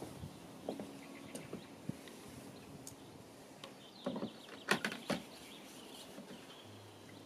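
Rubber boots stepping on wooden deck boards and a bucket being set down, with a cluster of louder knocks about five seconds in.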